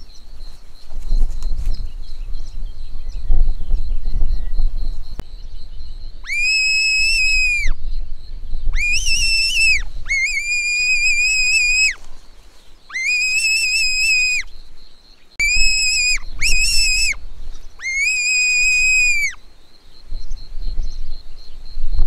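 Button-type fox whistle blown in a series of seven high-pitched calling notes, most about a second long, each sliding up at its start and dropping away at its end: a predator call used to lure foxes in. A low rumble fills the first few seconds before the calling starts.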